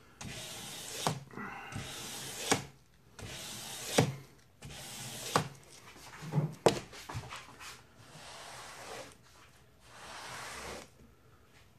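Sandpaper rubbed by hand along a hand-forged steel sword blade: rasping back-and-forth strokes about every second and a half, each ending in a sharp tap. The strokes grow softer and more irregular in the second half.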